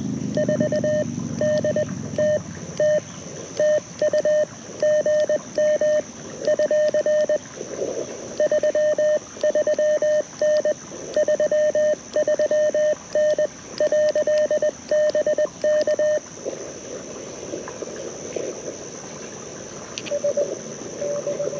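Morse code from a portable QRP CW transceiver through a small speaker: a single tone of about 600 Hz keyed in rapid dits and dahs for about sixteen seconds. After that comes receiver hiss, with a little more keyed tone near the end.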